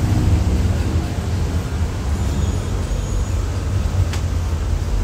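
Steady low rumble of background noise, with a single sharp click about four seconds in.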